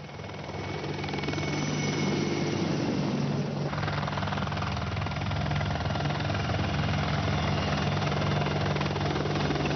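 Military helicopter in flight: steady rotor and turbine noise that swells over the first two seconds, shifts in character a little after three and a half seconds, then holds steady.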